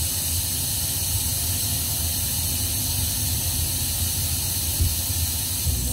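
Steady FM static hiss from a Sony CXA1619 analog FM receiver tuned between stations, played through the amplifier's speakers.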